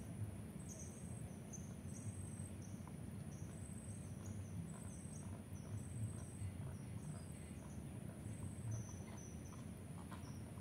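Outdoor ambience: an animal's short, high two-note chirp repeats about once a second over a faint steady high whine and a low rumble.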